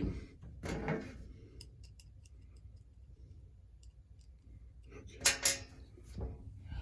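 Light clicks of small metal parts being handled: scattered faint ticks, then two sharp clicks close together near the end.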